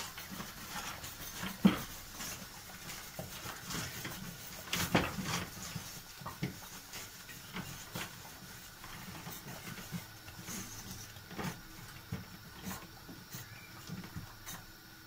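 Stirring milk pudding in a large steel pot, the utensil scraping and clinking irregularly against the pot, with a sharper knock about two seconds in and a few more around five seconds.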